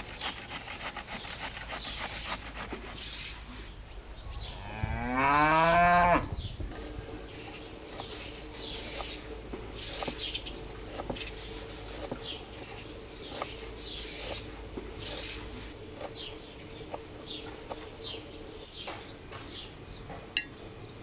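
A cow moos once, about five seconds in: one long call rising in pitch, the loudest sound here. Small birds chirp around it.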